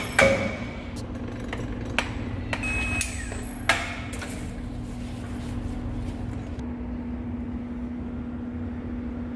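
A series of sharp metal-on-metal knocks on the steel rod and lathe chuck jaws, some ringing briefly, the loudest near the start and at about three and a half seconds. After about four seconds only a steady low workshop hum remains.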